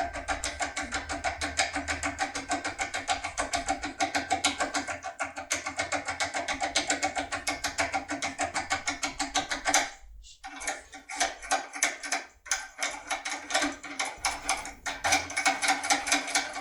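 UCEM 2000 foil impression pick being worked back and forth in a lock cylinder with light pressure: fast, even clicking at about six clicks a second. The clicking breaks off about ten seconds in, then returns in shorter, irregular runs.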